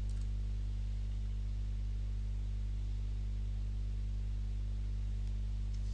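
Steady low electrical hum with several evenly spaced overtones, unchanging throughout.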